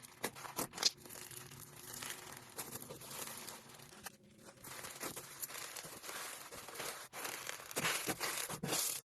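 Dry, crumbly material being crushed and crumbled: a continuous crackly, crinkling sound with many sharp snaps. It dips briefly about four seconds in, grows louder near the end, then cuts off suddenly.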